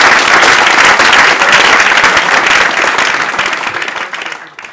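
Audience applauding, the clapping tapering off and dying away near the end.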